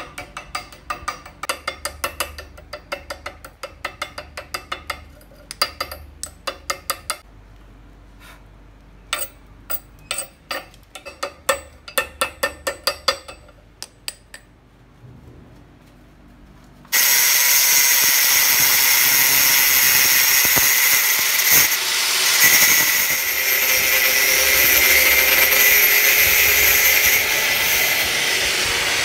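Chipping hammer striking a fresh weld on nuts welded to a threaded steel rod clamped in a bench vise: sharp metallic taps in quick irregular runs, knocking off welding slag. About 17 s in, an angle grinder starts abruptly and runs steadily against a metal tube.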